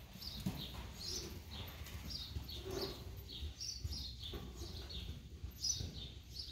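Small birds chirping, many short high chirps that slide downward, repeated over and over, over a faint low rumble.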